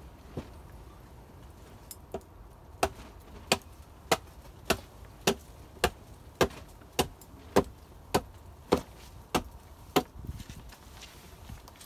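Axe chopping into wood to trim a piece back: two light taps, then about thirteen sharp, evenly paced strokes a little under two a second, stopping about ten seconds in.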